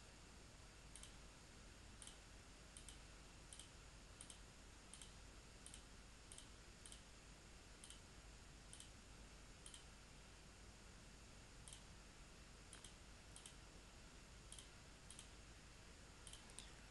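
Faint computer mouse clicks, about twenty at irregular intervals, opening drop-down menus and picking entries, over a low steady hiss.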